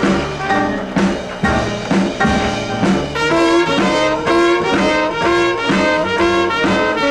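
Small-band jazz: a trumpet plays the lead over a plucked double bass, with a tenor saxophone joining in, the horns repeating a short phrase in the second half.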